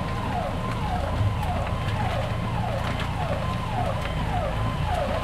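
Police vehicle siren sounding a repeated falling tone, about one and a half sweeps a second, over a steady low rumble.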